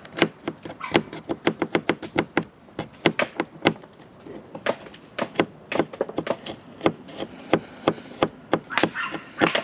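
Kitchen knife chopping garlic on a plastic cutting board: quick, sharp knocks of the blade striking the board, several a second, in runs with brief pauses.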